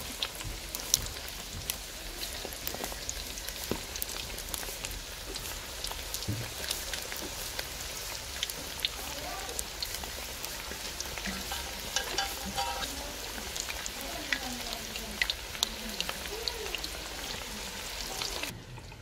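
Battered chicken pieces deep-frying in hot oil, a steady sizzle full of fine crackles and pops. It cuts off suddenly just before the end.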